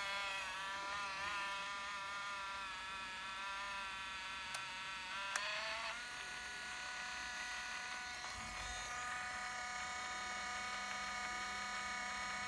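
A steady buzzing tone made of several evenly spaced pitches. It wavers slightly at first and shifts to a new, steady pitch about six seconds in, with two short clicks shortly before the change.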